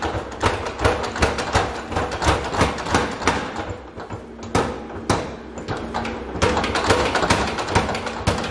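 Massey 1cwt over-hanging power hammer striking hot steel in rapid blows, several a second, as a billhook blank is forged under it. The blows thin out and soften about four to six seconds in, then pick up again, over a steady low hum.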